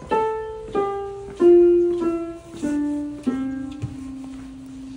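Musical piano stairs sounding one piano note per step as someone walks down them: six notes about two-thirds of a second apart, each lower than the last, the final one held and ringing on. A soft thump follows shortly after the last note.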